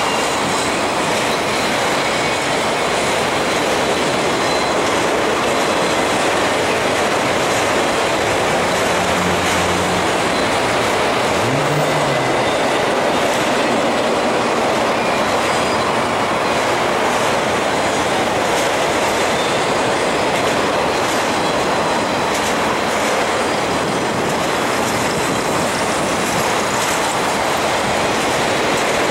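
A freight train of empty autorack cars rolling past on the track: a loud, steady rumble of steel wheels on the rails.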